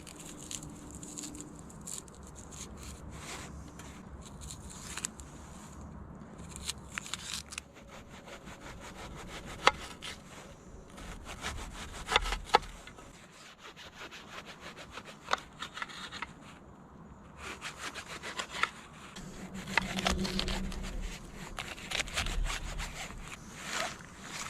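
Wood being sawn by hand: runs of rapid rasping strokes, with a few sharp knocks.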